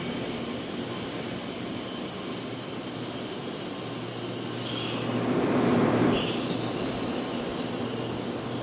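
N700S Shinkansen train rolling slowly alongside the platform as it brakes to a stop, a steady high-pitched whine over a low running rumble. About five seconds in the whine cuts out for a second while the low rumble swells, then it comes back.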